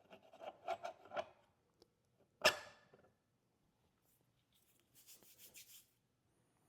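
Parts of a Turin DF83V flat-burr espresso grinder being handled as the burrs and front burr carrier are fitted back in: a few soft taps and clicks, one sharp clack about two and a half seconds in, and light scraping near the end.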